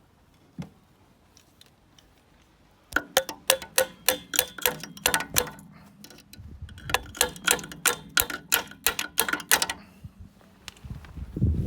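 Run of sharp metallic clicks, about three to four a second, from a hand tool working on seized steel fittings. The clicks start about three seconds in, stop near the end, and are followed by a single low thump.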